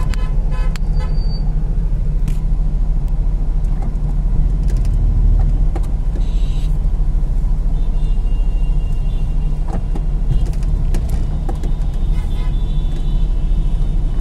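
Steady low rumble of road traffic and idling car engines in slow, jammed city traffic, with a few faint clicks and a faint thin whine in the second half.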